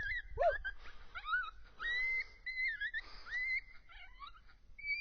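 Coyote yips and short wavering howls, a string of high calls that rise and fall with brief breaks between them.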